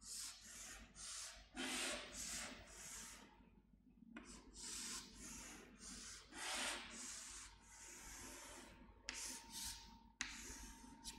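Chalk scraping on a chalkboard as long lines are drawn: a run of separate strokes, each under a second, with one sharp click about ten seconds in.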